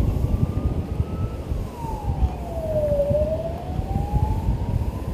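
A siren wailing: one tone that rises, sweeps down to its lowest point about three seconds in, then climbs again. Under it is a rough, low rumbling noise.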